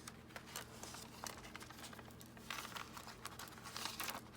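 Paper rustling and crinkling in short, scattered bursts as journal pages and paper ephemera are handled, over a faint steady low hum.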